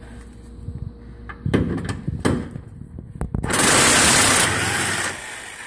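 A few sharp knocks, then an impact wrench runs for about a second and a half, loosening a front subframe bolt.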